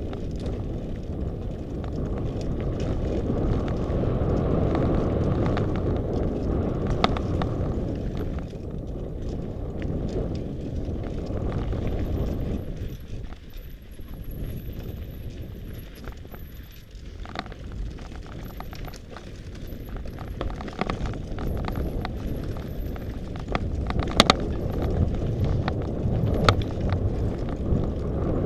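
Mountain bike riding fast down a stony dirt trail, heard from a camera mounted on the bike or rider: a continuous rumble and rattle of tyres and frame over the ground, with sharp knocks as it hits stones, thickest near the end. The rush eases for a few seconds in the middle.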